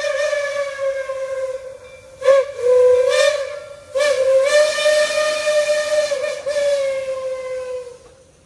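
Steam whistle of Reading 4-8-4 T-1 locomotive No. 2102 blowing: a long blast that dies away about two seconds in, two short blasts with bending pitch, then another long blast that stops shortly before the end.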